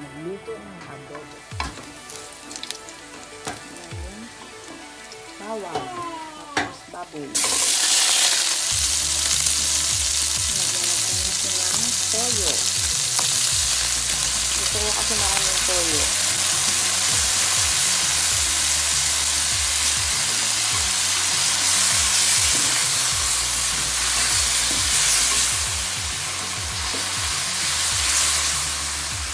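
Pork and chicken pieces sizzling in hot oil in a wok while being stirred. It is quiet at first, and the loud, steady sizzle starts abruptly about seven seconds in.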